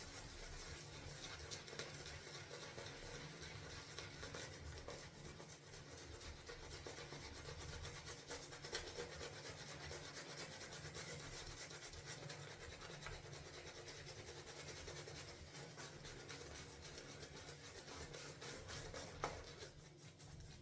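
Synthetic shaving brush working tallow-based shaving soap into lather after more water has been added: a steady, wet, scratchy rubbing with fine crackles, fading out shortly before the end.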